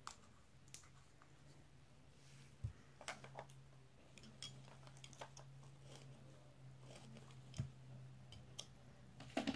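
Faint scattered clicks, taps and a couple of light knocks of makeup containers being handled and set down, over a steady low hum.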